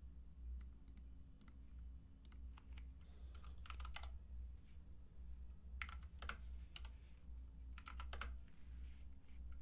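Computer keyboard keys clicking as short terminal commands are typed, in a few quick bursts of keystrokes, faint against a low steady hum.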